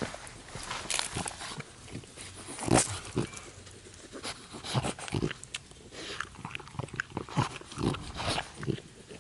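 French bulldog chewing a beef jerky stick: irregular crunches and wet mouth clicks, the loudest about three seconds in.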